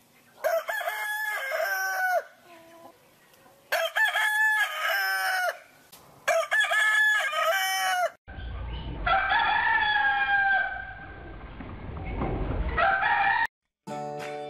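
Rooster crowing, three cock-a-doodle-doos of about two seconds each, then a longer crow over a low rumble. A short tune begins just before the end.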